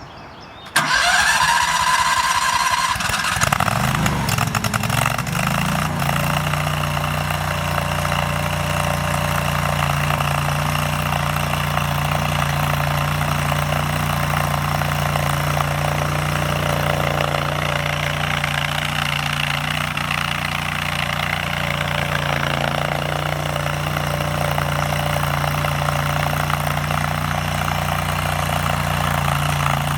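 Engine of a new AGROTK ride-on tracked skid steer loader starting: after a brief crank it catches under a second in, runs up for a few seconds, then settles to a steady idle.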